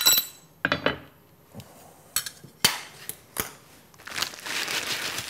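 Steel parts of a sheet metal brake's bending bar clinking and knocking as they are handled and set down, about half a dozen sharp metal knocks in the first three and a half seconds, then a rustle of paper or packaging near the end.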